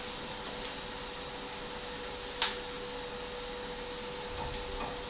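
Kitchen extractor fan running steadily, a constant rush with a faint steady hum. A single light click about two and a half seconds in.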